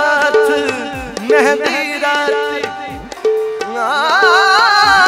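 Male singer performing a folk song to harmonium, with a drum beat keeping steady time; his voice comes in briefly a little after a second in and rises into a long wavering line from about four seconds in.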